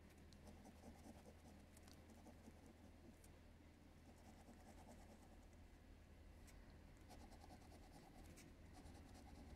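Faint scratching of a coin rubbing the coating off a scratch-off lottery ticket, with quiet rasping strokes and a few small clicks as the coin edge catches the card.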